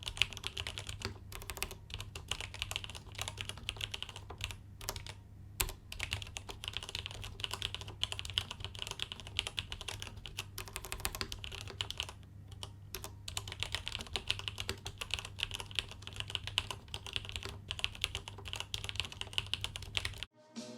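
Fast, continuous typing on a mechanical keyboard with stock vintage Cherry MX Black linear switches (Cherry G80-3000 era) and GMK keycaps: dense, irregular key strikes and bottom-outs with a couple of brief pauses. The typing cuts off abruptly just before the end.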